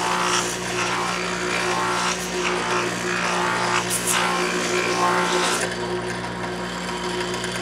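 Electric bench motor turning a long horizontal sanding drum, running with a steady hum. A piece of wood is pressed against the spinning abrasive sleeve in repeated rasping sanding strokes, which stop about two-thirds of the way through. This is the first test run of the lengthened drum.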